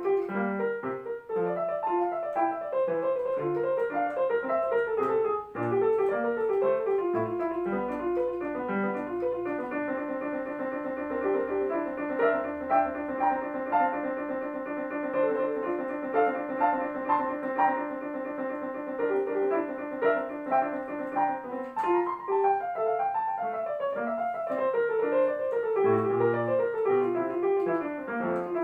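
Digital piano played at a fast tempo, a classical piece in quick running notes. Partway through, a long stretch of one rapidly repeated figure, then running passages again.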